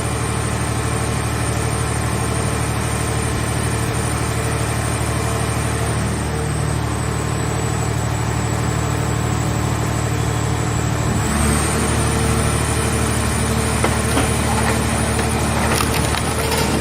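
Car scrap baler's power unit running steadily with a high whine. About 11 seconds in the pitch changes as the machine takes up a new load, and clanks and crackles come in near the end.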